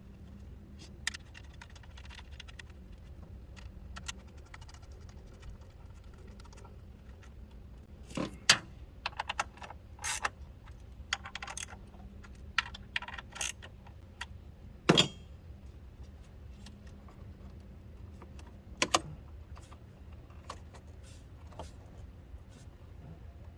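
Scattered metallic clicks, clinks and knocks of hand tools and engine parts being handled, with a few louder knocks about eight, fifteen and nineteen seconds in.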